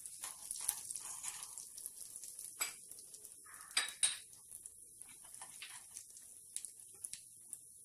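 A metal spoon stirs a small pan of tadka over a gas flame, clinking and scraping against the pan in scattered short clicks, the loudest about four seconds in. The tadka is ghee with cumin seeds and red chilli powder, sizzling faintly underneath.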